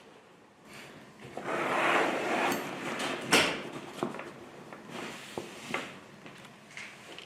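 Handling noises with no speech: a second-long scraping rush, then a sharp knock followed by a few lighter knocks.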